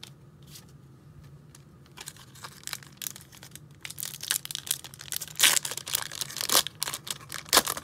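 Foil wrapper of a 1991-92 Upper Deck basketball card pack being torn open and crinkled by hand. It becomes a rapid run of crackling tears and crinkles about two seconds in, loudest in a few sharp bursts over the last few seconds.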